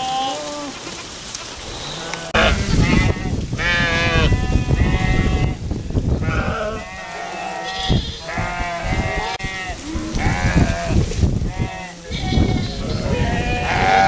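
A mixed flock of sheep and goats bleating constantly, many overlapping calls at different pitches, over a low background noise that comes in about two seconds in.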